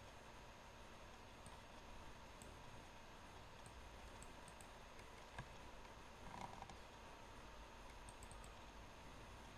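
Near silence: faint room hiss with a few soft computer mouse clicks, one a little past five seconds in and a short cluster about a second later.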